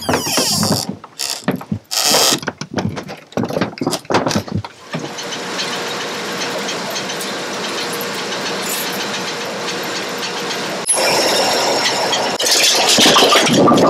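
A run of sharp knocks and clatters, then automatic bowling pinsetter machinery running steadily with a faint hum, getting louder about eleven seconds in.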